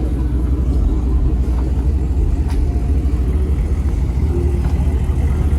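Motor vehicle rumble: a steady, deep low-pitched drone of engine and road noise.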